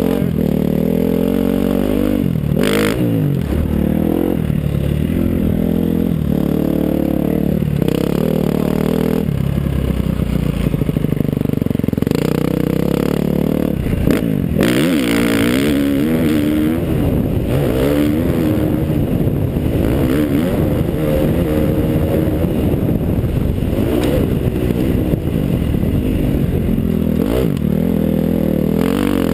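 KTM 350 SX-F single-cylinder four-stroke motocross bike engine, revved up and down again and again as it is ridden hard around a dirt track, heard from the rider's helmet camera. Its pitch rises and falls with each throttle change, with a couple of sharp knocks, about three seconds in and about halfway through.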